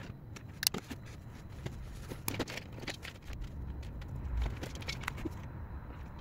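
Irregular light clicks and taps of handling on a workbench, one sharper click about a second in, over a low steady hum.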